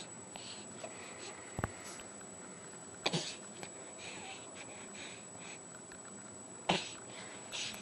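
Baby sucking on its fist, making a few short, noisy mouth and nose sounds. The two loudest come about three seconds in and near the end.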